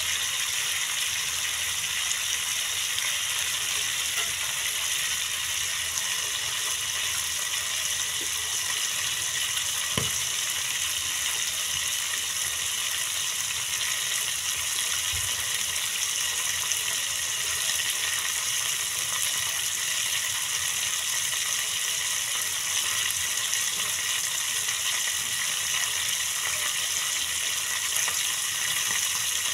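Goat leg and intestine pieces sizzling steadily as they fry in spiced oil in a pan over a gas flame. One small knock comes about ten seconds in.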